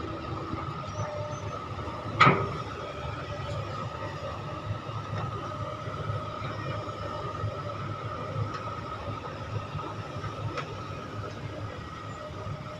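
SK200 Mark 5 excavator running steadily while loading soil into a dump truck, its engine rumbling under a constant whine. A single sharp clank about two seconds in.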